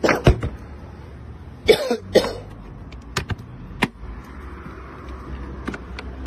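A person coughing, in short bursts near the start and again about two seconds in, followed by a few sharp, separate clicks and knocks.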